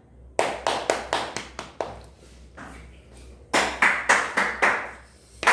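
Rapid, irregular hand claps, several a second, easing off around the middle and coming back louder near the end.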